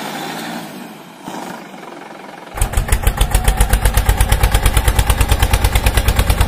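A rapid, evenly spaced string of loud bangs, about eight a second, like machine-gun fire, starting about two and a half seconds in. Before it, a steady engine-like hum that drops away about a second in.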